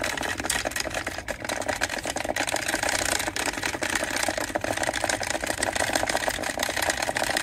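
Magnetic stir plate running, its stir bar spinning in the water of a foam-cup calorimeter, with a steady, rapid rattle.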